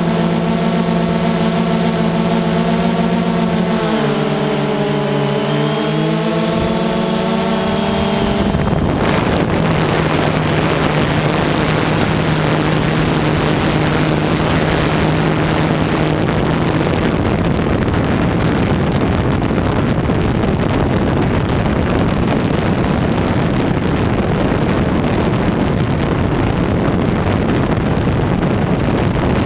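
Multirotor camera drone's propellers whining, a stack of steady tones that dip in pitch briefly about four seconds in. About eight seconds in it changes abruptly to a steady rushing noise, with a faint low hum that fades out about halfway through.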